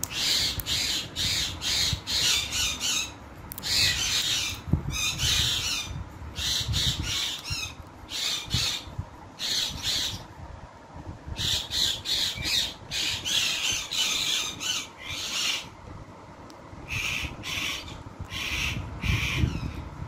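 Rose-ringed parakeet (Indian ringneck) squawking repeatedly: harsh, short screeching calls in runs of several with brief gaps between.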